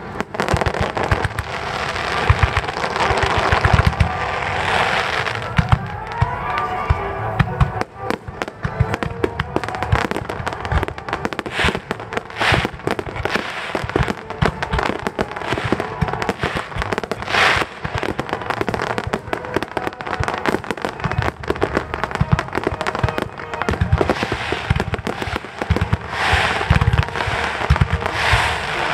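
Firework shells bursting in a dense finale barrage, a near-continuous run of bangs and crackles with a few louder reports, over background music playing throughout.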